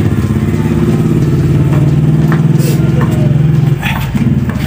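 An engine running steadily at idle, a low, even, rapidly pulsing hum, dipping briefly near the end.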